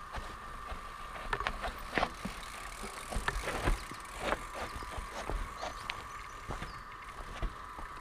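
Mountain bike clattering over a rocky trail: irregular sharp knocks and rattles from the bike, over a steady high hum.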